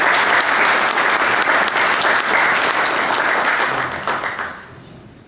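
Audience applauding in a large hall, dying away about four seconds in.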